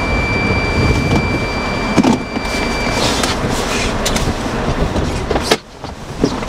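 Strong storm wind and rain rushing around a parked vehicle, with a windshield wiper sweeping and scattered knocks. A steady high-pitched tone sounds until about three seconds in, and the rushing noise drops off abruptly for a moment near the end.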